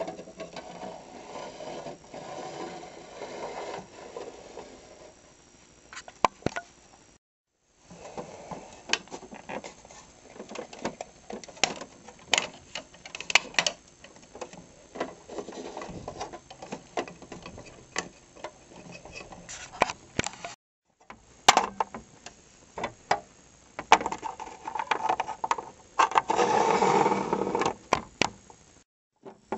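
Hand-handled plastic Littlest Pet Shop figures knocking, tapping and scraping on a plastic dollhouse floor: scattered sharp clicks over a low rustle of handling noise, busiest near the end. It drops to silence for a moment twice.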